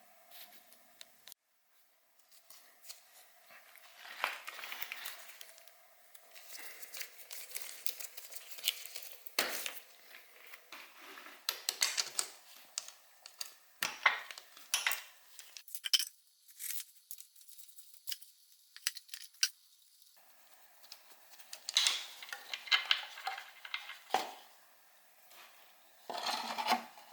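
Hand tools and small metal parts clinking, rattling and scraping in irregular short clatters, with a quiet spell a little past the middle, as a motorcycle is taken apart.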